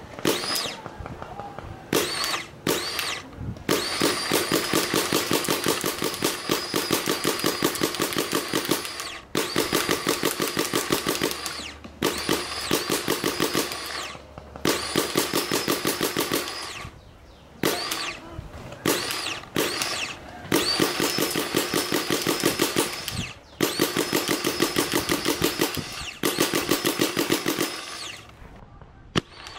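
Adrenalin Featherlite Angel LCD paintball marker fired in rapid strings of about seven or eight shots a second: several bursts a few seconds long, with short pauses between. During each burst there is a steady whine that rises at the start, from the motorised loader spinning up to feed balls.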